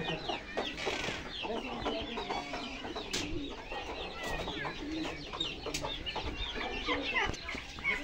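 Many caged birds calling at once: a steady chatter of short, high chirps over lower clucking of fowl, with a sharp click about three seconds in.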